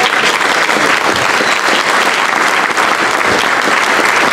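Audience applauding: sustained clapping from many hands in a banquet room, steady and loud.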